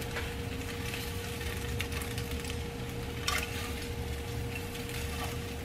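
Hot scrambled eggs sizzling in a nonstick skillet while a spatula scrapes them out onto a plate, with a couple of short scrapes of the spatula against the pan. A faint steady hum runs underneath.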